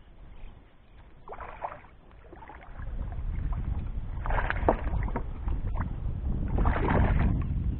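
Water splashing as a fish is netted beside a kayak and lifted out in a landing net, in three short splashy bursts, with a low rumble underneath from about three seconds in.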